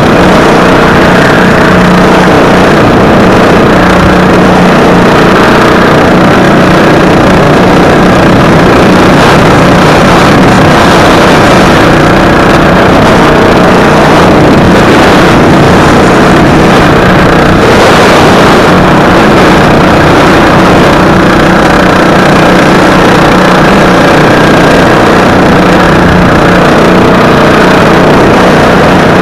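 Racing lawn mower engine running loud at a steady high speed under load.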